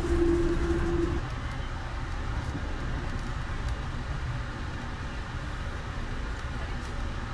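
Steady low rumble of a moving passenger train coach heard from inside the car. A steady hum on one note sounds for about the first second, then cuts off.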